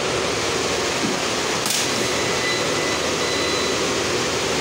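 Steady fan-like rushing noise with a faint high-pitched whine running through it, and a brief rustle about a second and a half in.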